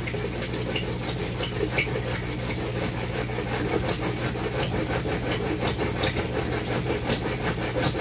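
A bare hacksaw blade, held in the hand, sawing a slot into 4-inch PVC pipe in quick back-and-forth strokes that get louder toward the end. A steady low hum runs underneath.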